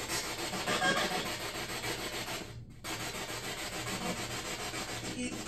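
Spirit box sweeping through radio stations: a steady static hiss that cuts out briefly about two and a half seconds in.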